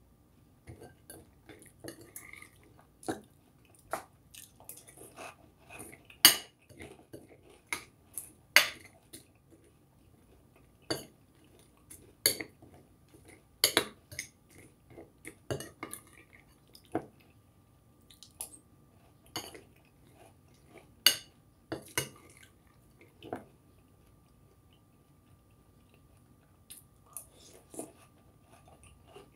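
Spoon clinking and scraping against a cereal bowl in irregular sharp clicks, with crunchy chewing of cereal between spoonfuls.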